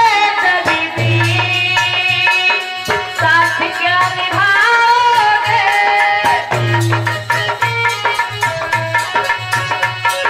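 Instrumental stretch of a Hindi folk bhajan: a melody instrument plays held and gliding notes over a steady beat of hand-drum strokes and rattling percussion.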